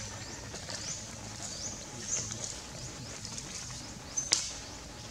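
Forest ambience: short high chirping calls repeat about twice a second, each rising then holding, over a low steady hum. A sharp click stands out about four seconds in.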